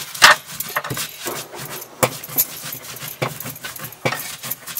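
Glass bangles clinking and a grinding stone scraping as chilies and spices are crushed by hand on a flat stone: a run of sharp, irregular clinks over a rough rubbing sound.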